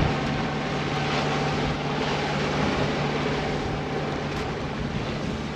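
Water rushing and splashing along the hull of an Alberg 30 sailboat under way, with wind and a low steady hum underneath.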